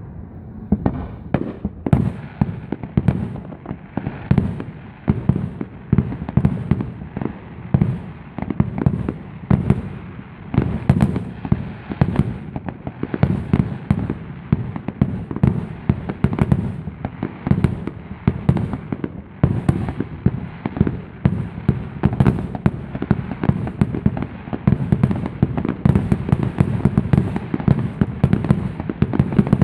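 Aerial fireworks going off in a dense, continuous barrage of booms, several a second without a break, with small crackling pops scattered over them.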